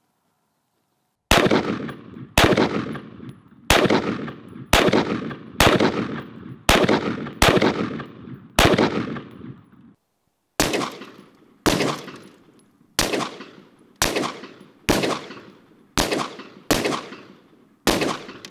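Semi-automatic 5.56 rifle firing armor-piercing rounds one after another, about one shot a second, each with a long echo. There are sixteen shots in two runs of eight, with a short break between them.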